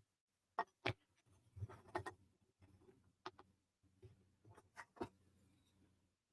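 Small wooden puzzle pieces clicking and tapping against each other as they are fitted together: about ten short, light knocks scattered unevenly, a few in quick pairs.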